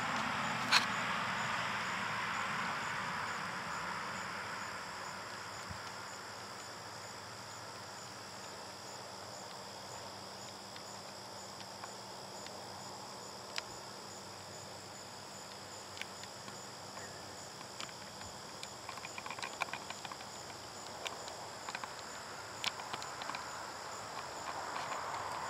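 A steady chorus of crickets and other insects, several high, even trills sounding together, one of them pulsing. A soft rushing noise swells near the start and again near the end, and a few sharp clicks are scattered through.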